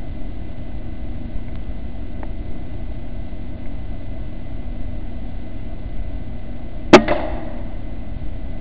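A single shot from an Air Arms S510 pre-charged pneumatic air rifle about seven seconds in: one sharp crack with a short ring after it, over a steady low background hum.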